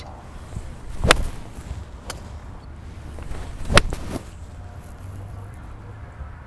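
Golf clubs striking balls on a driving range: sharp cracks at impact, one about a second in, a faint one about two seconds in and the loudest about three and a half seconds in, over a steady low rumble.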